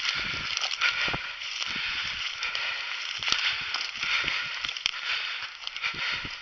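Dry grass and brush rustling and crackling irregularly, with scattered small snaps, as someone moves through field cover.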